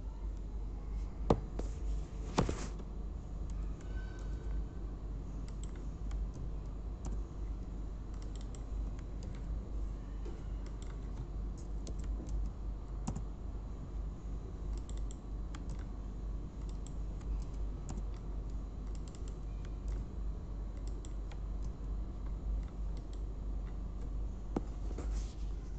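Typing on a computer keyboard: scattered key clicks with short pauses, two louder clicks about a second and two and a half seconds in, over a steady low hum.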